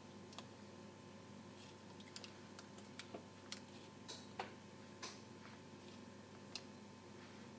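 Coarse salt being sprinkled onto unbaked pretzels: faint, irregular little ticks as grains land on the dough and parchment paper.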